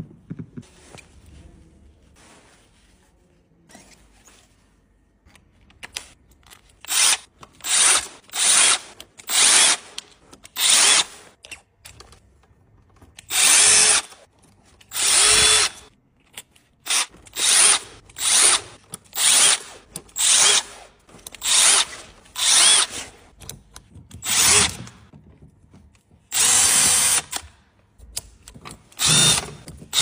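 Milwaukee cordless driver spinning a wire-stripper bit in about twenty short bursts, most about half a second long and a few about a second, as wire is pushed in to strip off its insulation. The first six seconds hold only faint handling sounds.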